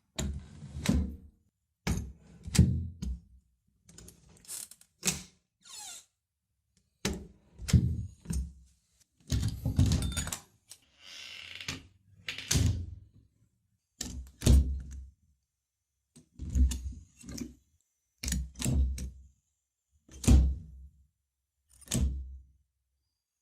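A wooden door being shut again and again: about fourteen separate thuds as it closes against its frame, each with a deep low end, with short creaks from the hinges between some of the shuts.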